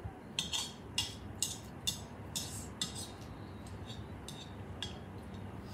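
Cutlery clinking and scraping against a bowl of noodles as they are eaten. It comes as a run of short clicks, about two a second, louder in the first half.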